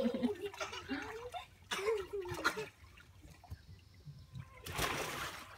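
Shallow water sloshing and splashing in an inflatable paddling pool as a child pushes a large ball through it, with a burst of splashing near the end. A child's wordless voice is heard in the first couple of seconds.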